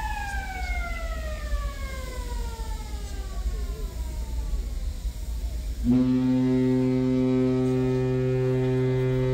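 A Navy destroyer's alarm siren winding down, its pitch falling steadily. About six seconds in the ship's whistle cuts in as a deep, steady horn blast. Sounding all alarms and then the whistle signals that the newly commissioned ship is fully alive.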